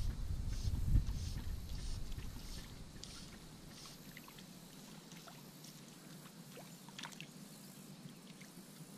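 Water lapping and sloshing around an inflatable float tube, with a low rumble for the first few seconds, then quieter with a few small drips and splashes near the end.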